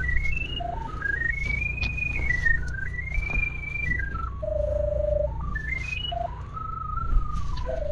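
A whistled tune: a single pure tone moving up and down in quick stepped notes, in long rising and falling phrases, over a steady low rumble.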